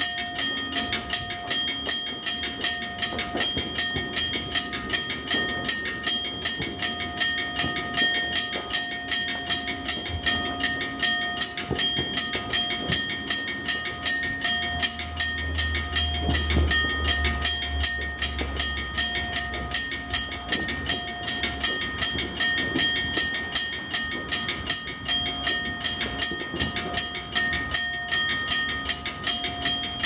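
Railroad crossing bells ringing together in fast, steady repeated strikes. A low rumble passes underneath about halfway through.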